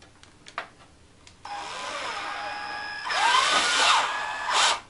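Cordless drill driving a screw into the plastic frame of a case fan. The motor starts about a second and a half in, runs steadily, then runs louder with its pitch wavering under load, and stops just before the end.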